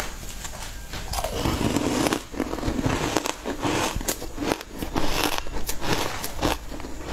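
Crunchy biting and chewing of a green-powder-coated food, picked up close on a lapel microphone: many irregular crackling crunches.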